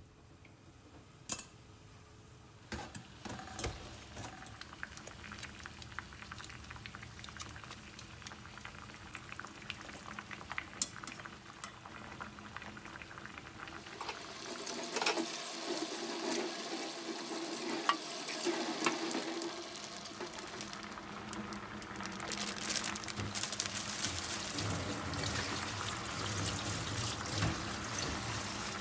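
Kitchen sounds: a lidded pot of bean sprouts bubbling at the boil, then sharp clicks of chopsticks against a stainless steel bowl as boiled bean sprouts are tossed, and for the last several seconds a tap running steadily onto leafy greens in a stainless steel sink.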